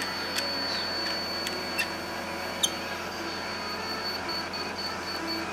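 Laser-level receiver on a grade rod sounding a steady high tone, which such receivers give when on grade. Near the end it breaks into short, evenly spaced beeps as the rod moves off grade. A few sharp clicks sound over it, the loudest about halfway through.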